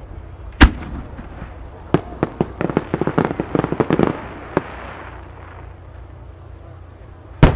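Large Japanese aerial firework shells bursting: a heavy boom under a second in, then a quick run of sharp cracks for about two and a half seconds as a shell scatters many small bursts, and another heavy boom near the end.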